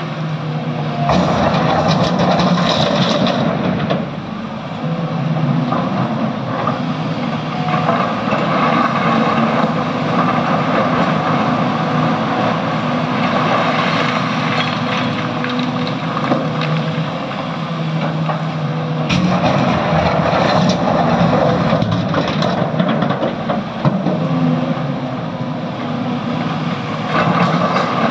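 Diesel engine of a SANY excavator running hard under load while it works, the sound swelling and easing as the hydraulics take up load.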